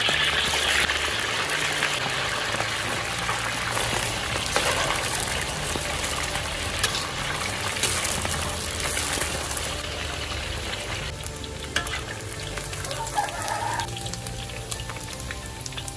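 Chicken wings deep-frying in hot oil in a wok: a steady, loud sizzle of bubbling oil that dies down about three-quarters of the way through.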